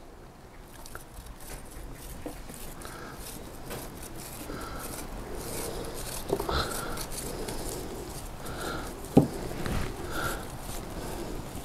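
Lightly frozen white cheese (twaróg) rasped across a flat handheld stainless grater in repeated scratchy strokes. A single sharp knock about nine seconds in is the loudest sound.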